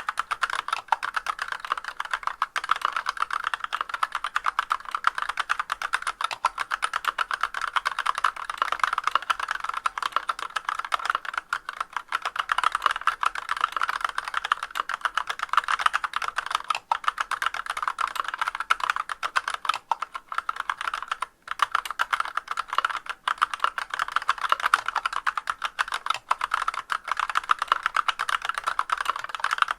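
Continuous rapid typing on a Massdrop CTRL High-Profile mechanical keyboard with Artbox Black linear switches, stock unlubricated stabilizers and no sound dampening. The keystrokes come densely, with a brief break about two-thirds of the way through.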